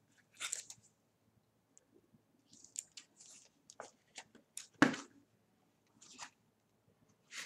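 Bowman's Best baseball cards being handled on a table: scattered short rustles and clicks as cards are slid and picked up off a stack, with one louder tap just under five seconds in.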